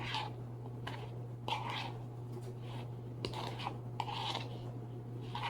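A utensil scraping through food in a pan as it is stirred: a series of short, irregular scraping strokes over a steady low hum.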